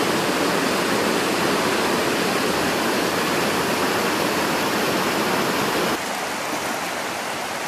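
Mumlava river water rushing and swirling through rock potholes, a steady rush. It drops a little in level about six seconds in.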